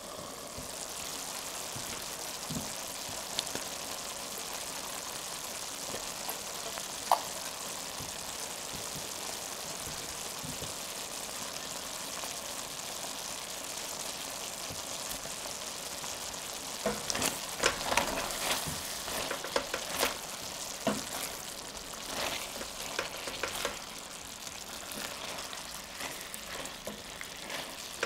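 Chicken and bell-pepper stir-fry sizzling steadily in a stainless steel sauté pan. About two-thirds of the way through, a silicone spatula starts stirring and scraping the food against the pan, adding a run of clicks and scrapes over the sizzle.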